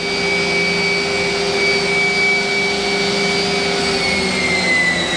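The 12,000 RPM spindle of a Mazak Nexus 510C-II vertical machining center running at full speed, making a steady high whine. Near the end the pitch begins to fall slowly.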